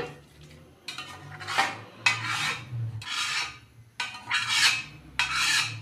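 A spoon scraping cooked minced meat out of an aluminium pressure cooker into a karahi, in about six separate rasping strokes of the spoon against the metal.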